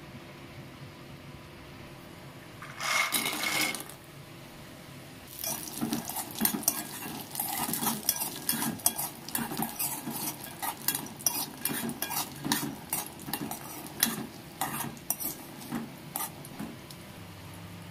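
Dried vathal berries tipped into hot oil in a small aluminium pan with a brief rattling rush about three seconds in, then a spoon stirring and scraping them around the metal pan in quick, uneven clatters as they roast.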